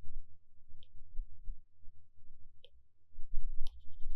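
A few sharp clicks of a stylus tapping on a tablet screen while writing, spaced about a second apart, over a low rumble.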